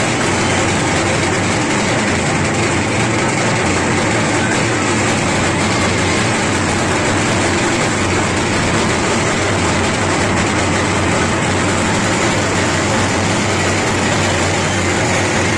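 Loud, steady din of a large, tightly packed crowd, a continuous wash of many voices with no breaks.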